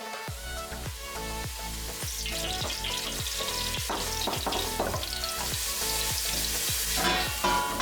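Food frying and sizzling in a hot pan, with background electronic music and a steady kick-drum beat playing over it.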